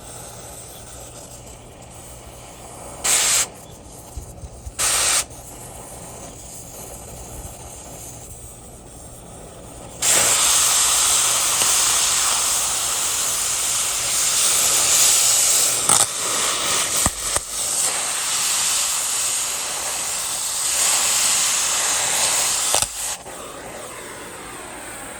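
Cutting torch hissing as it heats a seized wheel nut on a tractor hub, with two short loud blasts a few seconds in. About ten seconds in the hiss turns much louder and stays so for some thirteen seconds, as the torch cuts through the nut, then drops back.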